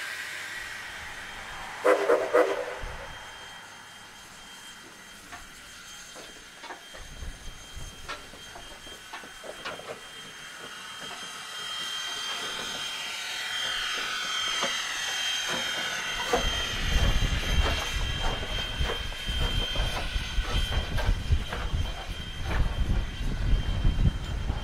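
Steam locomotive No. 89, a 2-6-0, working close by. There is a steady hiss of steam with scattered clanks at first, then from about two-thirds of the way in a louder run of low exhaust beats as the engine works.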